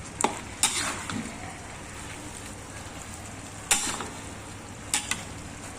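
Chicken sizzling as it fries in a pan, under a steady hiss. A spatula scrapes and clinks against the pan a few times, twice in quick succession near the end.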